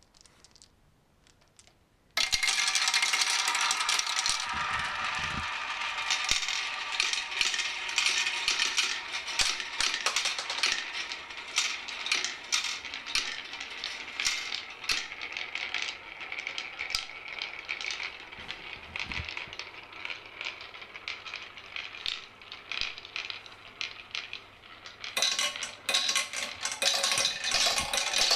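Many marbles released at once, rolling and clattering down a stepped staircase marble-run course as a dense, rapid stream of clicks. It starts suddenly about two seconds in, eases a little midway and grows louder again near the end.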